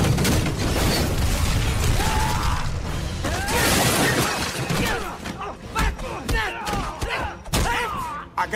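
Action-film sound mix: a vehicle crashing through a building with a loud, dense rumble of debris, then men shouting and a rapid run of sharp thuds and crashes from a fight, with glass breaking.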